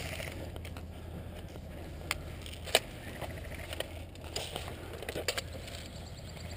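A few separate sharp clicks over a low steady rumble, then a short patter of lighter clicks and rattles near the end, from airsoft play: gear and rifle knocking, or BBs striking.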